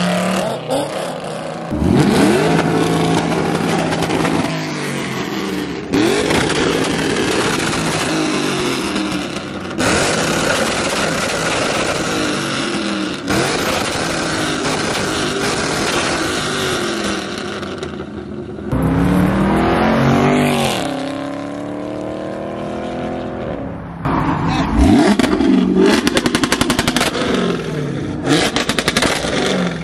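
Camaro muscle cars' engines revving and accelerating hard as they pull away, one car after another, each engine note rising in sweeps. A sharp, loud rev rises and falls about two-thirds of the way through.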